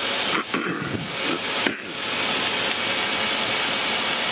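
Steady rush of cockpit noise in an Embraer Legacy 600 business jet in flight: airflow and cabin air over the engines' drone, with a thin steady high tone running through it.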